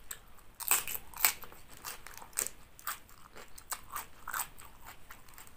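Raw cabbage leaves being bitten and chewed close to the microphone: a string of irregular crisp crunches.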